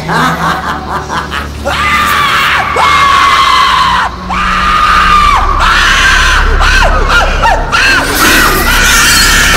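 A high voice shrieking and wailing in a run of repeated rising-and-falling cries, over a steady low rumble.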